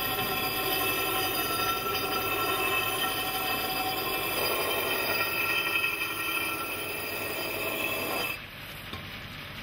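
Glass edge pressed against a spinning wet grinding wheel, giving a steady, high-pitched squealing whine that gets louder about four seconds in and stops suddenly about eight seconds in. The edge is being ground back to remove a crack.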